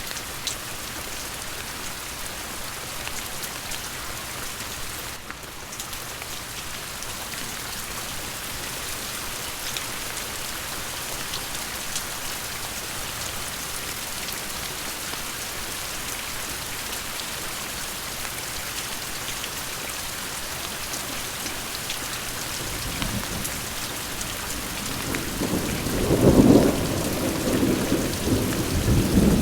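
Steady rain, with scattered drops tapping on a surface. About three-quarters of the way in, a low rumble of thunder builds, rolling loudest a few seconds later and again near the end.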